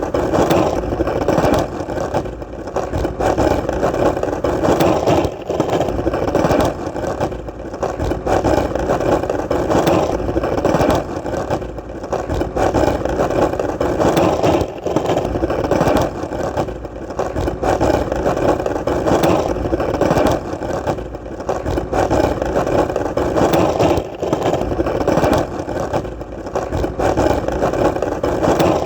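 Skateboard wheels rolling on hard ground: a continuous gritty rumble that swells and dips about every two seconds, with small clicks scattered through.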